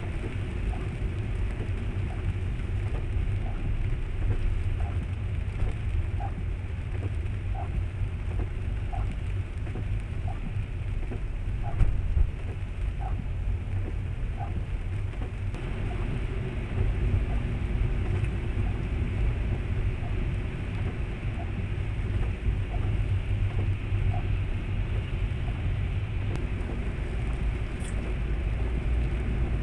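Car driving on a wet road in the rain: a steady low road-and-engine rumble with the hiss of rain and wet tyres. A string of evenly spaced light ticks, about one and a half a second, runs through the first half.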